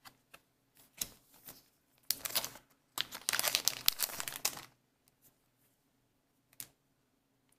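Trading cards being handled: light clicks and two longer rustles about two and three seconds in, as cards slide against each other and are moved on the stack.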